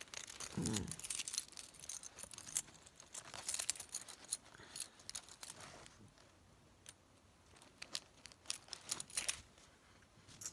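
Quiet rustling and crinkling of cross-stitch fabric and thread being handled close to the microphone, with scattered small clicks and ticks as the needle and thread are worked through the stiff cloth.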